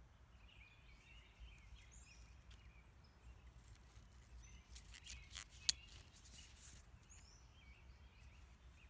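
Faint garden ambience: small birds chirping in short calls, over a low steady background rumble, with a few short clicks, the loudest about six seconds in.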